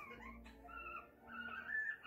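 A pet's high-pitched whimpering calls: several short squeaky notes in a row, rising and falling in pitch.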